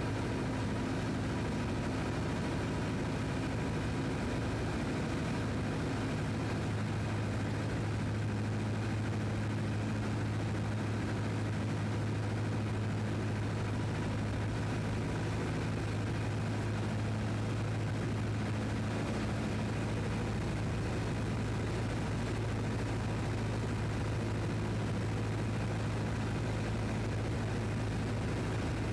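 Piper PA-17 Vagabond's Continental A-65 engine idling steadily, an even low drone with no change in speed.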